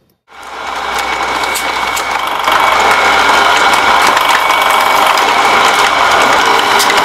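Thin bamboo strips being drawn through a wooden tool: a steady mechanical running and rattling with many small clicks, getting louder about two and a half seconds in.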